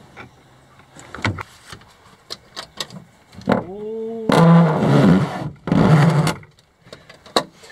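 A large boxy battery's case knocking, squeaking and scraping against the walls of a tight compartment in a boat's hull as it is forced down into it. A few sharp knocks come first, then a short squeak, then two loud grinding scrapes as it jams.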